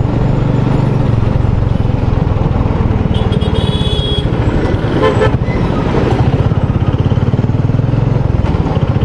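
Royal Enfield Bullet 350's single-cylinder engine running steadily under way, its exhaust beat coming as rapid even pulses. A vehicle horn sounds for about a second roughly three seconds in, and another short horn follows about five seconds in.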